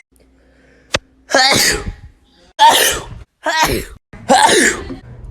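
A series of four loud human sneezes in quick succession, each starting on a voiced note that drops sharply in pitch before a hissing burst. A short sharp click comes just before them, about a second in.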